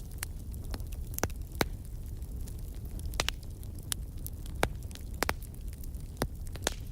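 Wood fire in a fireplace crackling: irregular sharp pops and snaps over a low, steady rumble of the flames, with two louder pops about a second and a half in and near the middle.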